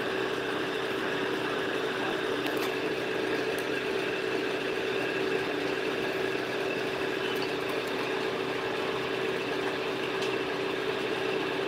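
A steady motor hum with one constant mid-pitched tone, unchanging throughout, with a couple of faint clicks.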